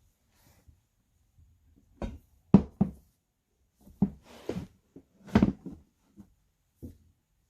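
Irregular knocks and thumps of a sound book being handled, about ten in all, loudest around two and a half seconds and five and a half seconds in, some with a brief papery rustle.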